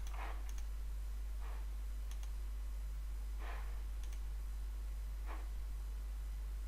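Computer mouse clicking a few times, each click a quick double tick (button press and release), with soft breaths into a close microphone between the clicks. A steady low electrical hum lies under it all.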